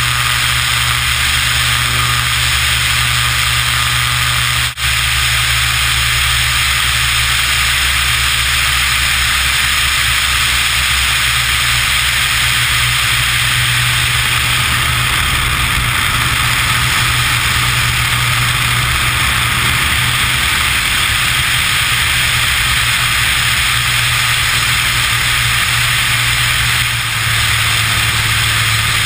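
Beechcraft Bonanza/Debonair piston engine and propeller running steadily in flight, with heavy wind rush over the wing-mounted camera. The sound drops out for an instant about five seconds in.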